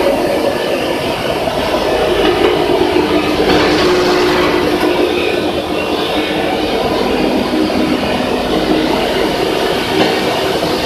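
QY-100 copper wire granulator running under load: a loud, steady mechanical noise with a steady hum under it, as the wire is chopped and the granules shaken across the separating table.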